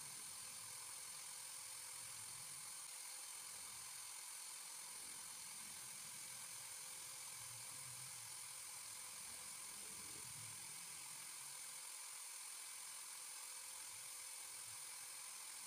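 Faint, steady whir of an electric drill spinning a fishing-float body on a needle while it is sanded to shape.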